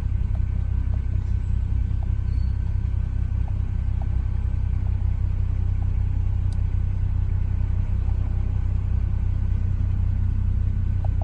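Mercedes E350's 3.5-litre V6 idling steadily, heard as a low rumble from inside the cabin, with a few faint clicks of the steering-wheel buttons being pressed.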